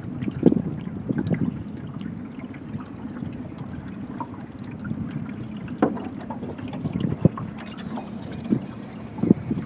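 Small boat under way on a river: water splashing and sloshing against the hull over a steady low rumble, with several short knocks or splashes.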